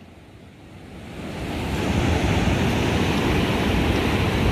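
Ocean surf with wind buffeting the microphone, a steady rushing noise heaviest in the lows. It comes in quietly and swells to full level over the first second and a half, then holds steady.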